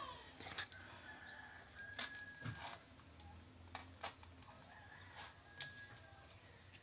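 Soft, scattered knocks and clicks of a knife and ripe bananas being handled and cut by hand, over a low steady hum. A faint, thin high call sounds twice in the background.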